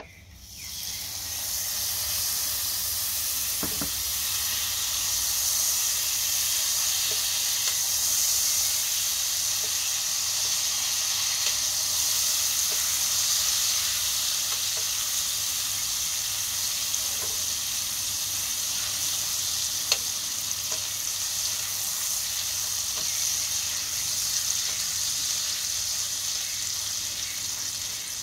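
Butter melting and foaming in a hot frying pan, sizzling steadily, with faint ticks from a wooden spoon stirring it. The sizzle builds up over the first second or two, then holds.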